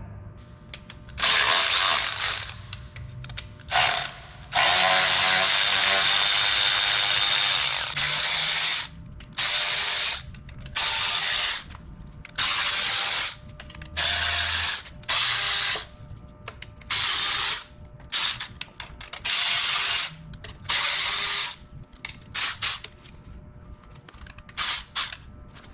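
Snap-on cordless electric ratchet running in about fifteen short bursts, mostly half a second to a second each with one longer run of about three seconds, backing out the 10 mm bolts of a factory stamped steel oil pan.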